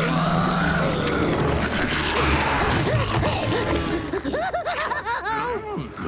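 Cartoon slime blob monster roaring, mixed with dramatic cartoon score and a deep rumble. About four seconds in, it gives way to a run of quick up-and-down warbling tones.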